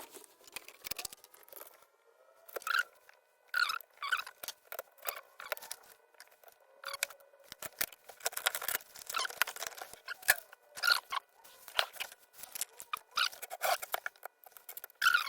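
Irregular scratchy clicks, rattles and rustles of hands and tools working on a circuit board, over a faint steady whine of several thin tones from the audio interface's faulty switching power supply.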